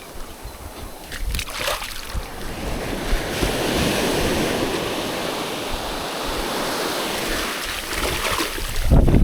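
Surf: a wave breaking and washing up the shore, a wide hiss that swells about three seconds in and eases off near the end. Near the end a loud low rumble of wind buffets the microphone.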